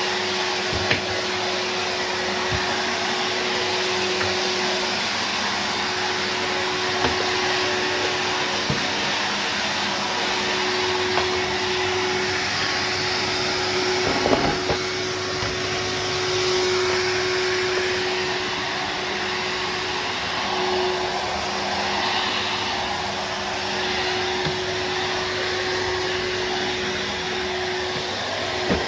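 Numatic Henry HVR200-22 canister vacuum cleaner running steadily, with a constant motor tone under the rushing hiss of air, and a few brief knocks about halfway through.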